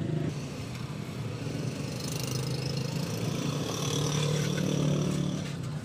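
Liquid squirted in a stream from a squeezed plastic bottle, hissing and splashing onto an engine's timing gears and running off, stopping shortly before the end. A steady low engine hum runs underneath.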